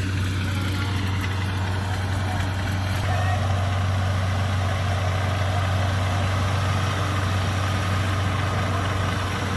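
Diesel engine of tracked rice-harvesting machinery running steadily at constant speed, a deep even hum that grows slightly louder about three seconds in.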